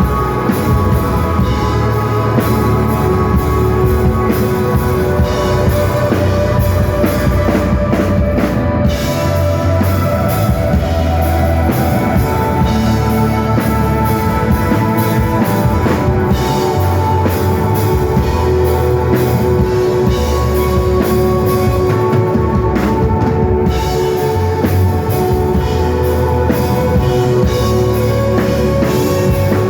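Rock band playing live at a loud, steady level. A drum kit with a heavy bass drum sits under electric guitar and bass holding long sustained notes.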